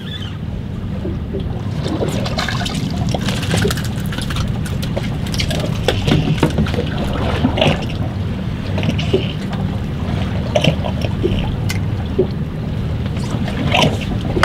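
Water sloshing and lapping against a boat's hull over a steady low rumble, with scattered small knocks and splashes.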